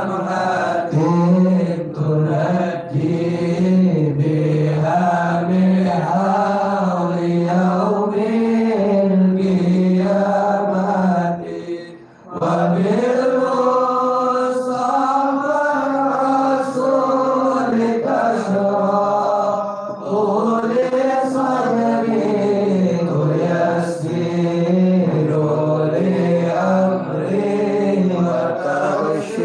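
A man chanting solo in a slow, melodic religious recitation, long held notes rising and falling, with a short break for breath about twelve seconds in.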